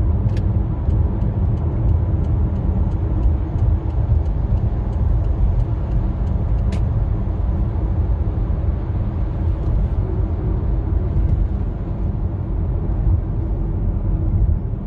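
Steady low engine and road rumble heard from inside the cabin of a 2009 Hyundai Santa Fe being driven.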